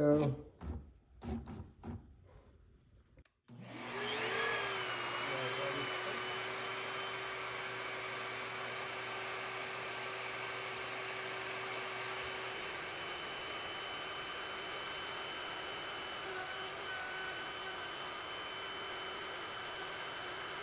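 A few handling clicks and knocks, then about three and a half seconds in the router motor of a handheld Compass CNC spins up, its whine rising and settling. It then runs steadily while a 1/8-inch flat end mill pockets out the engraving in a wooden cutting board.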